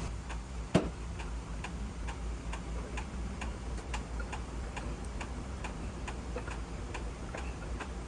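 A sharp metal clink about a second in, then faint, evenly spaced ticks about twice a second, as a lubed camshaft is eased into an LS V8 engine block.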